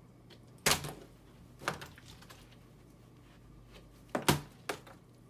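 Dull knocks of a flipped plastic water bottle hitting down: a sharp knock about a second in and a weaker one after it, then a loud thud near four seconds in as the tumbling bottle lands, with a small bounce just after.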